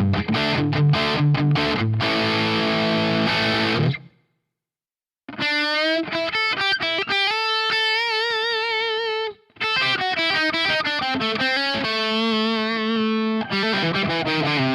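Distorted electric guitar through a Marshall JCM800-type amp model with a 1960-type 4x12 cab simulation, playing a chugging chord riff. The riff cuts off about four seconds in, and after a second of silence a single-note lead line follows, with a long held note bent with wide vibrato. Riffing resumes near ten seconds in.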